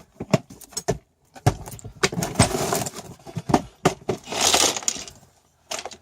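Hand tools and metal hardware being rummaged and handled: a quick series of sharp knocks and clinks, with two stretches of rustling, about a second and a half in and again near the four-second mark.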